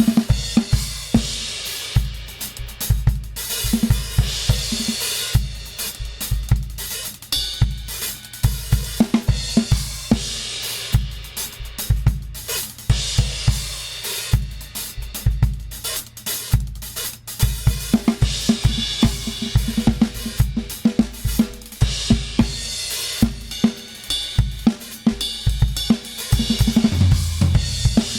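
Acoustic drum kit played in a steady groove: kick drum, snare and hi-hat with cymbal crashes, a sound check of the kit. The cymbal playing grows busier about two-thirds of the way in.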